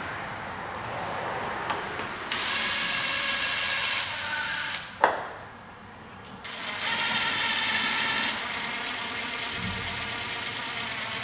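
DeWalt Atomic 20V MAX compact cordless impact driver driving screws into an RV power inlet, running in two long bursts: one a couple of seconds in, then after a pause with a sharp click, again from about the middle to the end, a little softer in the last few seconds.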